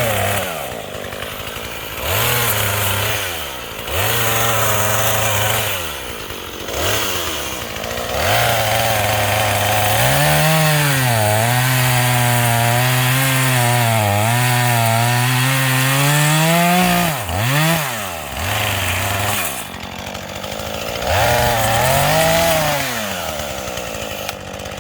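Small gas chainsaw revving in repeated bursts between idles while cutting wood. About ten seconds in, a long cut of roughly seven seconds makes the engine pitch sag and recover as the chain bogs under load.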